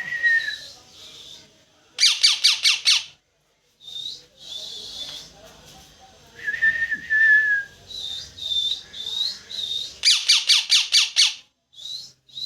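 Parrot calling loudly: short high chirps and whistles, two fast runs of about five or six harsh calls that sweep downward, and one longer, steady whistle in between.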